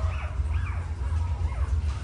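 Newborn puppies squealing and whimpering: several short, high cries that fall in pitch.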